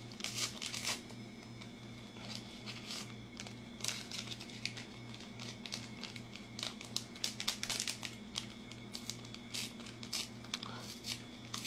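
Close handling noise from fingers on the phone: a run of irregular small clicks and crinkles near the microphone, over a steady low hum.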